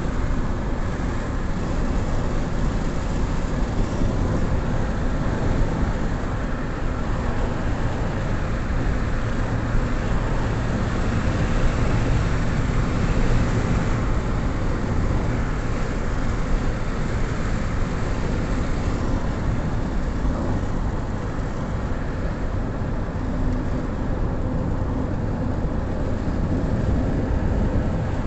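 Steady road noise of a car driving, heard from inside the cabin.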